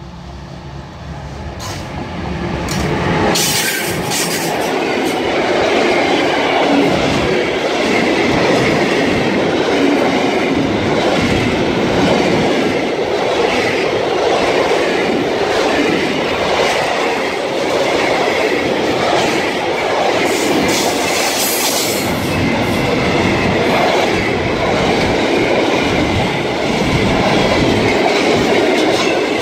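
Electric locomotive hauling a container freight train approaches, growing louder over the first few seconds, then the container wagons roll past close by: a steady rumble of steel wheels on rail with the clickety-clack of wheels over rail joints.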